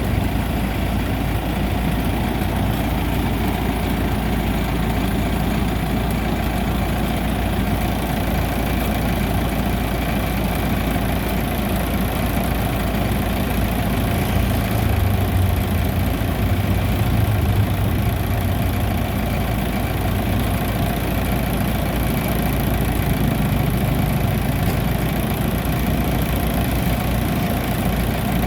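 Bimo Maxxi rice combine harvester engine running steadily, with its low hum growing a little stronger about halfway through.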